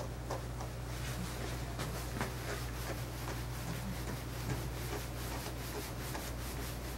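A grooming brush stroking through a long-haired dog's coat: quick, repeated scratchy swishes that come faster in the second half, over a steady low hum.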